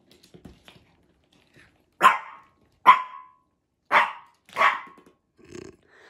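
Pomeranian barking: four sharp, short barks about a second apart, then a quieter, lower one near the end.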